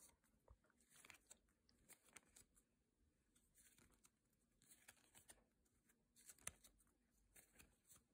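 Faint rustling and clicking of a stack of 2013 Topps MLS trading cards being flicked through by hand, card sliding over card at an uneven pace.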